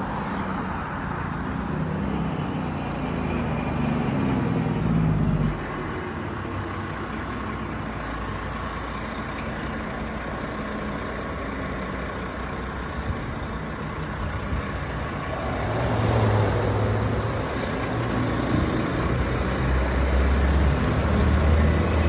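A heavy truck's engine rumbles close by, building for about five seconds and then dropping off abruptly. Road traffic noise follows, then another vehicle approaches about fifteen seconds in, with a deep engine rumble near the end.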